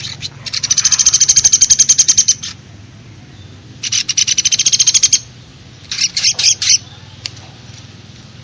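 Recorded calls mixing a Eurasian tree sparrow and a Sunda pygmy woodpecker (platuk beras): two long, fast, even trills of about ten high notes a second, then a short cluster of chirps near the end.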